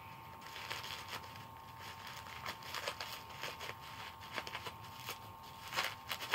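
Plastic bubble wrap crinkling and crackling as it is handled and pulled open, in irregular clicks. A faint steady tone hums underneath.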